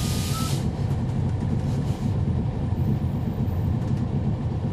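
Interior drone of a 2011 NABI 40-SFW transit bus, its Cummins ISL9 inline-six diesel running with a steady low rumble. A loud hiss cuts off about half a second in.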